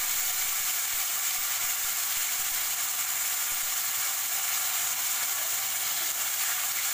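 Manchurian sauce sizzling steadily in hot oil with browned garlic in a kadhai, stirred with a steel spoon.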